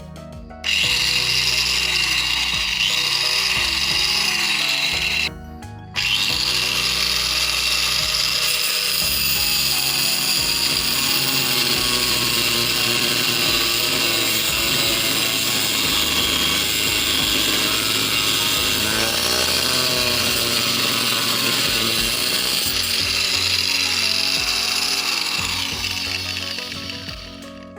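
Angle grinder cutting or grinding metal, a loud steady high-pitched grinding. It stops briefly about five seconds in, starts again about a second later, runs on steadily and fades out near the end.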